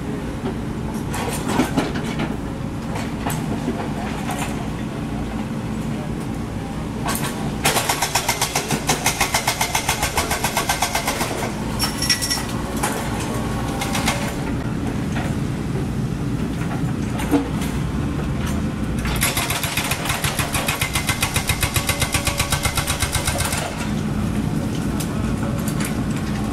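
Diesel engines of construction machinery running steadily, with two stretches of fast, even clatter at a few strokes a second, about a third of the way in and again past two-thirds.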